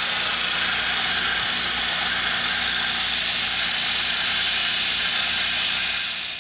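Bench belt grinder running with a metal throttle-body flap pressed against its belt, giving a steady grinding hiss over the motor's hum as the cut edge is sanded smooth; it cuts off at the very end.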